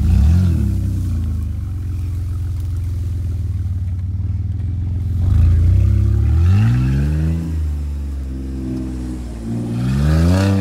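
Jeep Liberty's 3.7-litre V6 running low and steady as the vehicle moves off, then revving up twice: once about six seconds in and again near the end.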